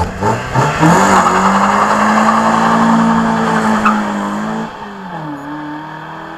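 2003 Mazda MX-5's four-cylinder engine through a decatted exhaust with the catalytic converter removed: the revs climb quickly in the first second, hold high and steady for about four seconds, then drop back to a lower steady note near the end.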